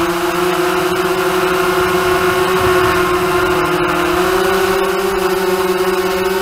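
Hexacopter's six DYS1803 brushless motors and propellers whining steadily in flight, heard through the onboard camera. The pitch dips slightly about four seconds in and then rises a little higher.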